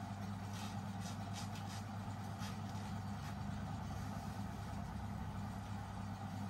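A steady mechanical hum that holds an even pitch, with a few faint clicks or rustles in the first couple of seconds.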